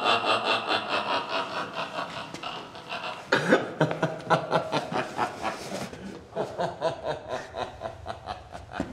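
A person laughing in a long run of rapid, even pulses, with a sharp louder burst of laughter about three and a half seconds in and more laughing after it.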